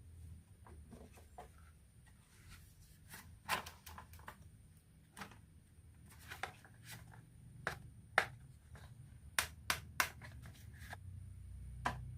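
Marbles clicking and clacking against each other and the wooden track of a marble run, in irregular sharp clicks, with a quick cluster of the loudest ones about nine to ten seconds in, over a low rumble.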